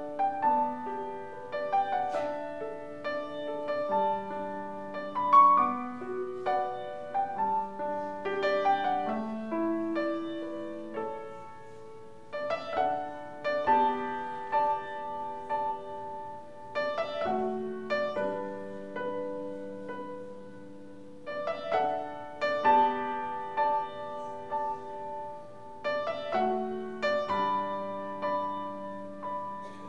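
Piano playing a gentle classical-style piece: melody notes and chords are struck and left to ring, in phrases a few seconds long.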